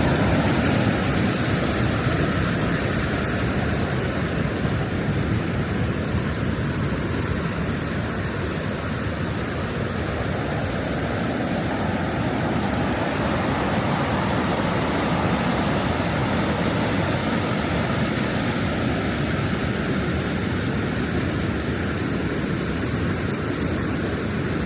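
Steady rush of a river tumbling over waterfalls, an even, unbroken roar of water.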